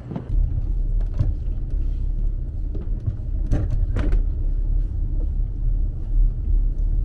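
A heavy low rumble, with a few sharp knocks about a second in and around three and a half and four seconds in.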